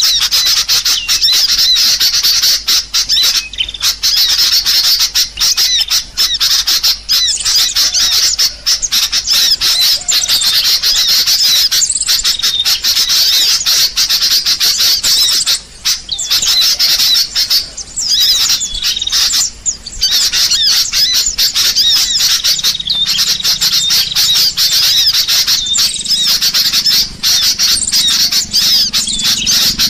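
A flock of birds squawking and chattering in the trees: a loud, dense, unbroken din of high, wavering calls.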